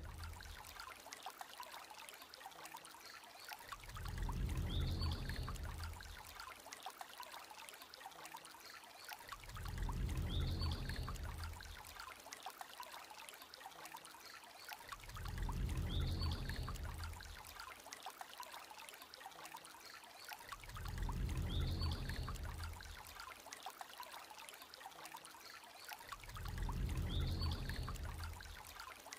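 Looping end-card sound bed: a steady, fine crackling hiss with a low swell that rises and falls five times, about every five and a half seconds. Each swell opens with a faint high chirp.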